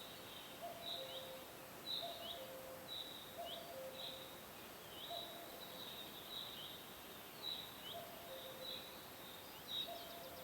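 Birds calling over faint outdoor ambience: a short high chirp repeats about once a second, with a lower two-note call repeating alongside it.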